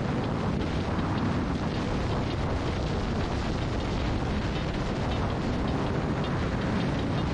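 Heavy wind buffeting on the microphone over a Yamaha R6's inline-four engine running through an Akrapovic full exhaust at steady highway speed. The rumble of the wind covers most of the engine note, and nothing stands out from the steady noise.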